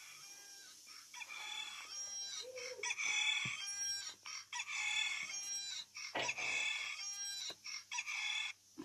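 A tablet's alarm clock ringing through its small speaker, playing a rooster-crow alarm tone that repeats about six times. It keeps going because the alarm has not been switched off.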